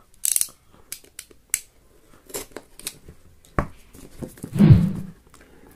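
A blade cutting the seal sticker on a cardboard phone box: a few short, sharp snips and clicks, then, past the middle, a longer and louder rubbing scrape as the box is handled.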